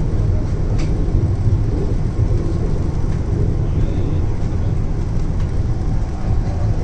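Hyderabad Metro train running on an elevated track, heard from inside the coach: a steady low rumble, with one faint click about a second in.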